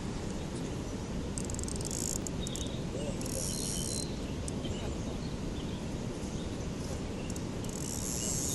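Crickets trilling in three high buzzing bursts of about a second each, over a steady low rumble.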